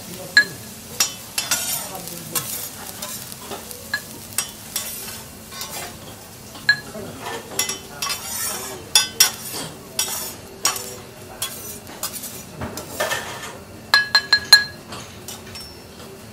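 Metal teppanyaki spatula scraping and tapping on a steel griddle as fried rice is scooped into a ceramic bowl and the griddle is scraped clean, with sharp ringing clinks, a quick run of them near the end. A faint sizzle underneath.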